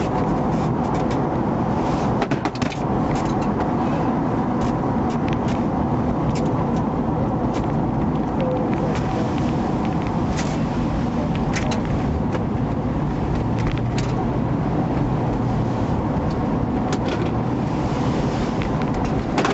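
Steady engine and road noise inside a moving car, with scattered small clicks and knocks and a brief cluster of rattles about two seconds in.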